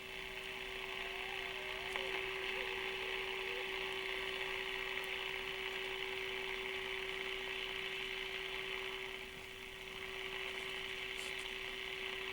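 Panasonic R-111 AM transistor radio's speaker giving a steady, mid-pitched test tone over hiss: the modulated signal from a signal generator, heard while the IF stages are being aligned. The hiss dips briefly near the end.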